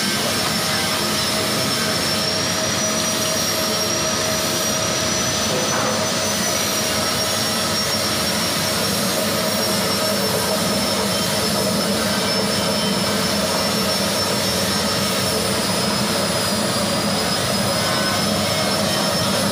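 Ginger washing and peeling machine running: a steady mechanical noise with a high whine over a lower hum, as ginger is washed and peeled inside its stainless-steel drum under running water.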